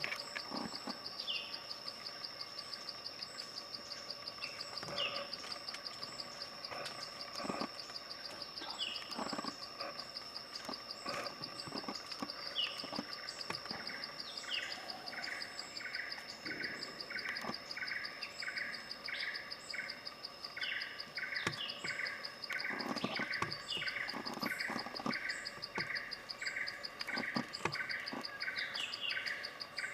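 Grey-faced tit-babbler singing, a long run of quick, evenly repeated notes through the second half, over a steady high insect trill. A few scattered short rising calls are heard earlier.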